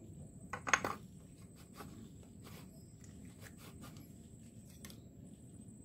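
Faint clicks and light knocks of a disassembled two-stroke chainsaw's metal parts being handled while its clutch drum is fitted back onto the crankshaft. A sharper cluster of knocks comes under a second in, then scattered soft ticks.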